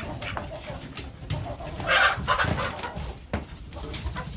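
Chickens clucking, with one louder squawk about two seconds in and a couple of sharp knocks near the end.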